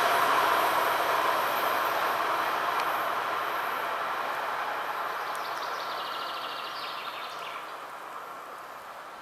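DR1AC diesel multiple unit running away along the track, its engine and wheel noise fading steadily. A brief run of faint high ticking comes about two-thirds of the way through.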